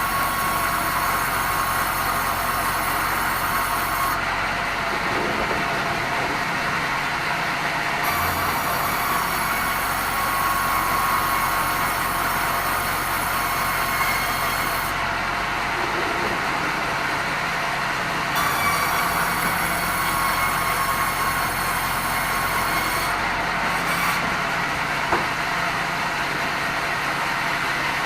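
Sawmill band saw running and cutting red meranti timber: a steady mechanical noise with a high ringing that drops away three times for a few seconds.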